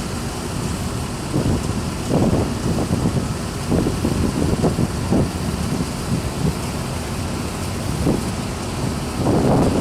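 Steady low rumble with irregular gusts of wind buffeting the microphone.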